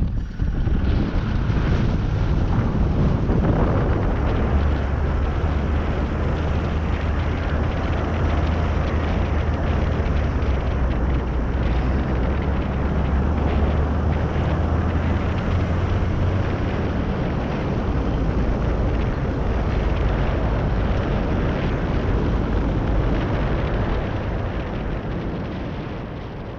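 ARO off-road vehicle's engine running steadily while it drives along the beach, a low hum under heavy rushing wind noise. It fades out near the end.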